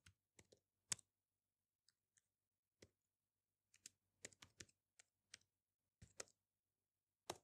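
Faint keystrokes on a laptop keyboard, typed slowly in small irregular clusters, with one louder key press near the end.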